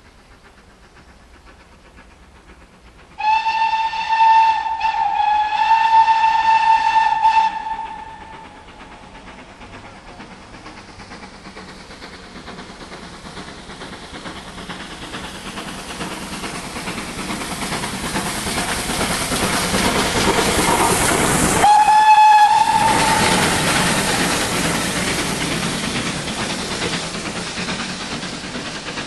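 GWR Castle-class 4-6-0 steam locomotive 5029 Nunney Castle sounding its whistle, one steady high note held for about five seconds with two brief breaks. The sound of the locomotive and train then builds as it approaches, with a second short whistle as it draws level, and fades as it passes.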